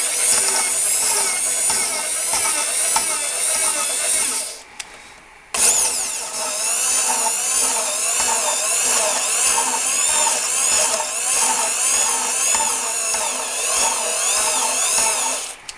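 Electric drill spinning an engine valve against its seat to lap it in with lapping paste. It runs in two spells with a short pause about four and a half seconds in, its whine wavering up and down in pitch.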